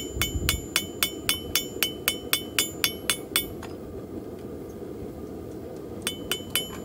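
Hammer blows on hot copper held in tongs on a steel anvil: sharp ringing strikes about four a second, then a pause of nearly three seconds and three more blows near the end. A steady low rush runs underneath.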